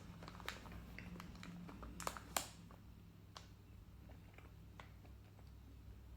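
A person eating a veggie snack bite: a few faint, scattered mouth clicks and small taps, most of them around two seconds in, over a faint low hum.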